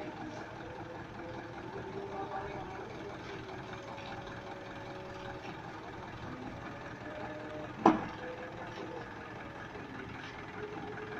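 Engine of a lowered custom truck running at low speed as it creeps slowly into place, with voices in the background. One sharp knock about eight seconds in.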